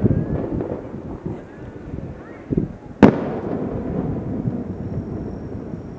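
Aerial firework shells bursting: a sharp bang at the start, a softer thump about two and a half seconds in, then a loud sharp bang about three seconds in, each trailing off in a long low echo.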